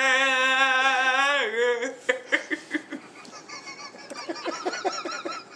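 A person's voice holding the last sung note of a Hawaiian chant with a wide vibrato, falling off in pitch about two seconds in. It is followed by quieter, short, high-pitched giggles.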